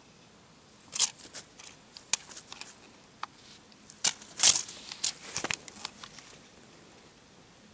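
Irregular rustling and crisp taps as a cat leaps and swats at a dangling feather wand toy, with the loudest bursts about a second in and again around four and a half seconds in.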